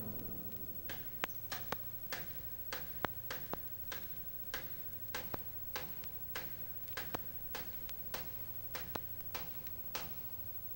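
Faint, sharp drumstick clicks in a loose march tempo, about two a second, keeping time for a marching band between tunes, over a faint steady hum from the cassette recording.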